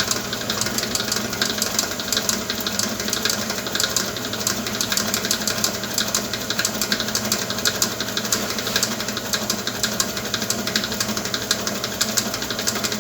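Electric mixer running steadily at speed, beating chocolate cake batter. The motor hum comes with a fast, continuous rattle.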